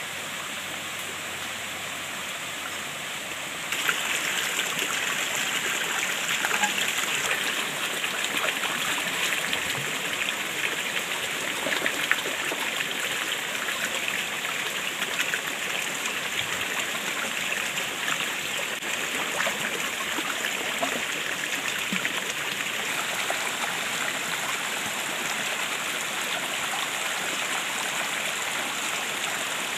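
Food frying in hot oil, a steady crackling sizzle that grows louder about four seconds in and keeps going.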